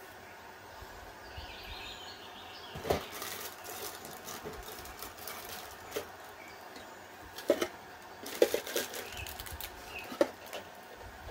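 Scattered light clicks and soft rustling, the loudest cluster of clicks a little past the middle, over a low background hiss.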